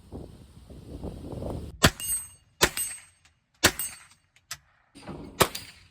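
Four sharp gunshots from a .22 rifle, roughly a second apart starting about two seconds in, with a fainter pop between the last two.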